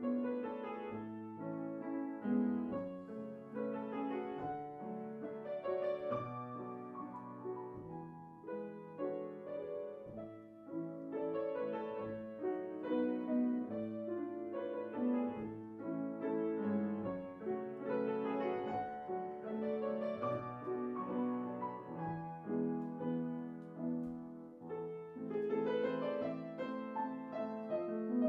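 Yamaha grand piano played continuously, a classical concerto passage of many quick notes and chords that swells and falls in loudness.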